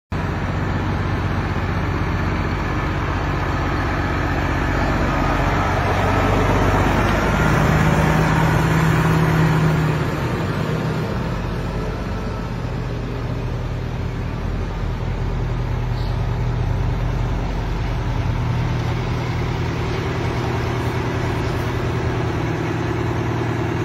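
Heavy trucks' diesel engines running as the trucks roll slowly along a street. There is a steady low hum that grows louder and rises a little in pitch about seven to ten seconds in, then eases back.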